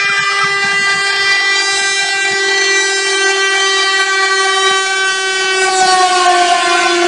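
Passenger train's horn sounding one long, unbroken warning blast as the train bears down on a level crossing where a bus stands. Near the end the rush of the passing train grows under it, the horn's pitch drops slightly, and it cuts off.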